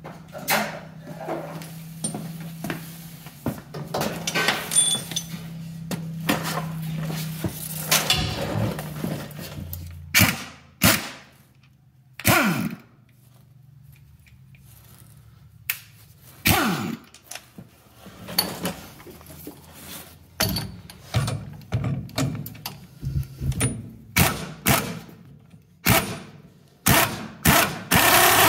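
Impact gun fired in short bursts while running a nut onto the worn, damaged threads of a front shock absorber's mounting stud, the motor winding down in pitch after some bursts. Bursts come singly at first, then in a quick series in the last several seconds.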